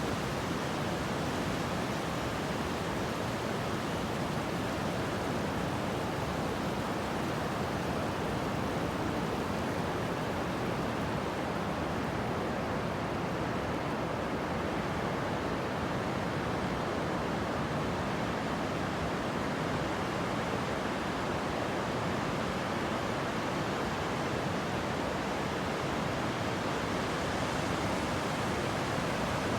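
Pacific Ocean surf: a steady, unbroken rush of waves with no distinct single breakers standing out.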